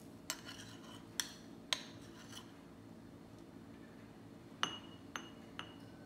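Steel spoon clinking against glass tumblers and a small bowl while crushed Oreo crumbs are spooned in. Six sharp clinks, each ringing briefly: three in the first two seconds, three more near the end.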